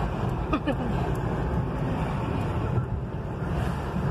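Steady low rumble of tyre and engine noise heard inside a moving car's cabin, with a brief faint gliding sound about half a second in.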